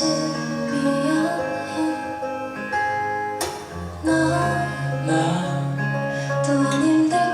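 Live band music in an instrumental passage, with guitar to the fore over sustained chords. A single sharp click cuts through about three and a half seconds in.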